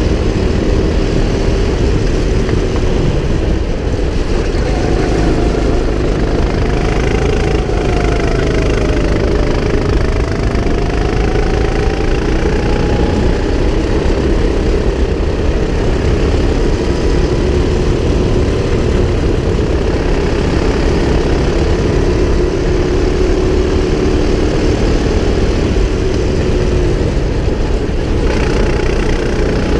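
Go-kart engine running continuously under the driver, its pitch rising and falling with the throttle through the corners, over a steady rushing noise.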